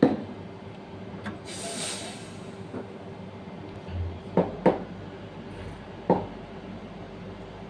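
Automatic coffee machine running with a steady hum, a brief hiss about two seconds in, and several sharp knocks and clinks, with a low rumble joining about four seconds in.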